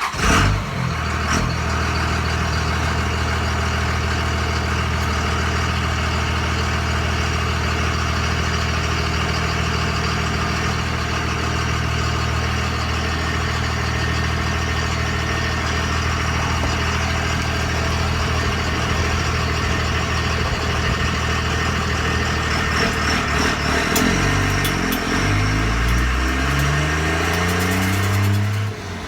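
2001 Ram 2500's 5.9-litre 24-valve Cummins inline-six turbo-diesel idling steadily, then revving up and down in several steps near the end.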